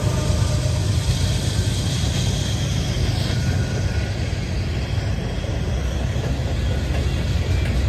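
Freight train passing: the trailing diesel locomotive goes by at the start, then freight cars roll past with steady wheel-on-rail noise and a low rumble.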